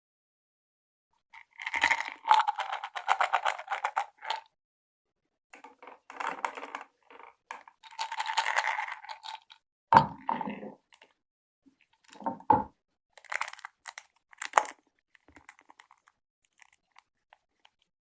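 Candy packaging being crinkled and handled in bursts of dense crackling, with a couple of sharper knocks in the second half and lighter scattered ticks near the end.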